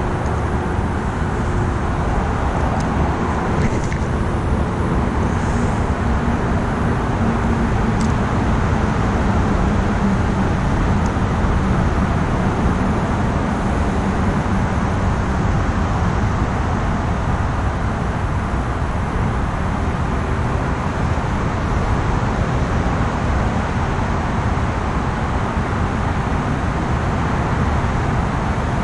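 Steady road traffic noise, a constant wash of cars, with a few faint clicks in the first third.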